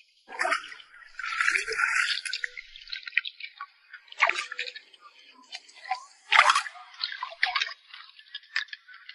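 Shallow seawater splashing and dripping as a gloved hand and long metal tongs probe among submerged bricks and rocks, with scattered sharp clicks. The sound comes in irregular bursts, louder near the start, about four seconds in, and about six and a half seconds in.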